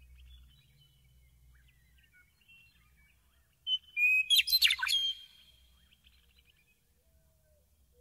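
A meadowlark sings one short song phrase about four seconds in: a clear whistled note, then a quick jumble of notes, about a second and a half in all. Faint, distant bird chirps come before it.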